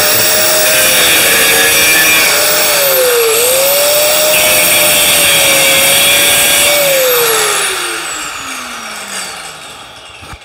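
Corded electric grinder running at full speed on sheet metal with a steady high whine, dipping and recovering once about three seconds in. From about seven seconds in it is switched off and winds down, its whine falling in pitch as it fades.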